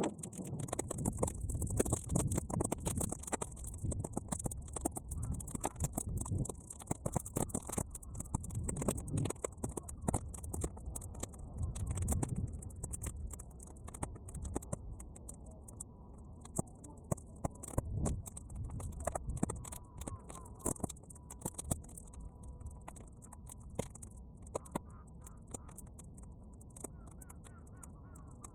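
Bonfire of half-dried weeds crackling, with many sharp irregular pops, over low gusty wind rumble on the microphone; the rumble eases in the second half.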